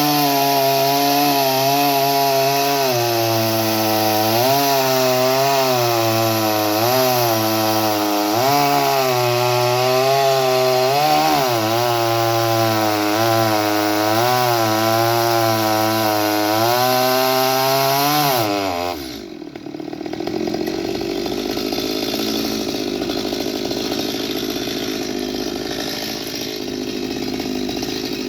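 Two-stroke chainsaw cutting through a log, its engine pitch dipping and recovering as the chain bites into the wood. About 19 seconds in it drops to a lower, rougher idle.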